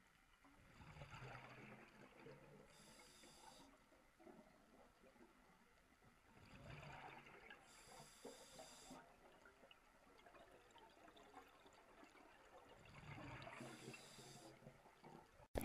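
Scuba diver breathing underwater through a regulator: three breaths about six seconds apart, each a bubbling rush of exhaled air and a hiss. A sharp click near the end.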